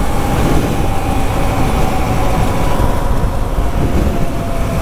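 Wind rushing over the microphone of a moving dual-sport motorcycle, with the 2017 Honda CRF250L's single-cylinder engine running underneath, its note falling slowly.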